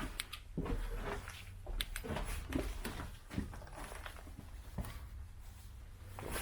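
Irregular footsteps and scuffs with light knocks and clicks on the floor of a concrete air raid shelter tunnel.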